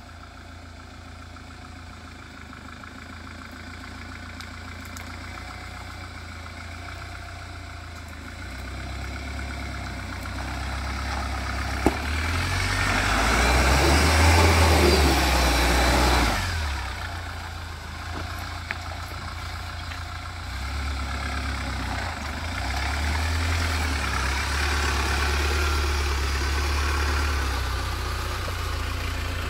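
Mahindra Thar's diesel engine running as the jeep drives an off-road track in two-wheel drive, a steady low rumble that grows louder, with a loud rush of engine and road noise for about four seconds near the middle and a single sharp click just before it.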